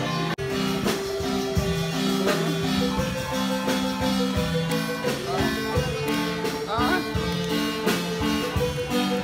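Background music: an instrumental with a steady beat and pitched notes changing in rhythm, with a momentary drop-out about half a second in.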